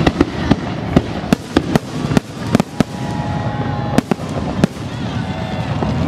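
Aerial fireworks display: a string of sharp bangs at irregular intervals, several a second at times, over a continuous low rumble of further bursts.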